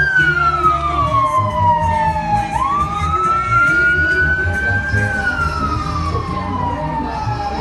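Vehicle siren in a slow wail: a single tone slides down, sweeps back up about two and a half seconds in, and slides down again, over a low rumble.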